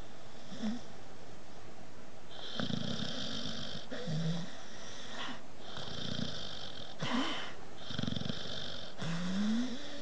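A sleeping dog snoring: a series of snoring breaths a second or so apart, each a low rasp with a hiss, the last one near the end sliding up in pitch.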